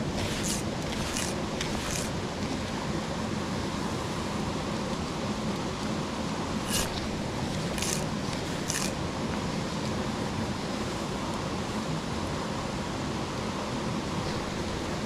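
Steady rush of a small mountain creek running over rocks and small cascades. Over it come three short swishes near the start and three more about halfway through, from fly line being cast or stripped through the rod.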